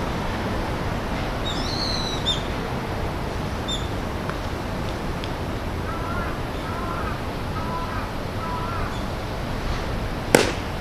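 Birds chirping over a steady outdoor hiss: a few short high chirps in the first four seconds, then a row of lower calls in the middle. A single sharp crack near the end.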